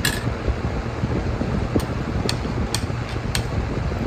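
Spoon and fork clinking against a plate about five times while eating, the first clink ringing briefly. Under it runs a steady low background hum.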